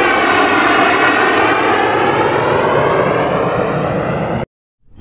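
Jet aircraft flying past, a loud rushing engine noise with a slowly sweeping, phasing tone. It cuts off abruptly about four and a half seconds in.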